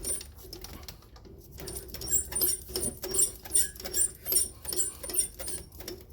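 Small metal lathe being wound backwards by hand during thread cutting, its gear train giving a regular clicking with high squeaks, about two or three a second.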